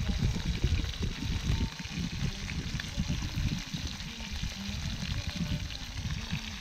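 Perch frying in oil in a pan over a wood fire, a steady sizzle, under a louder, uneven low rumble.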